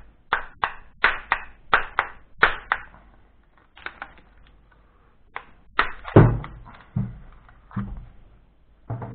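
Hammer blows on a microwave oven transformer's laminated steel core. A quick run of about three strikes a second comes first, then after a short lull a slower, irregular series of heavier blows, the loudest about six seconds in. The pounding is loosening the core's steel sheets to free the stubborn copper secondary coil.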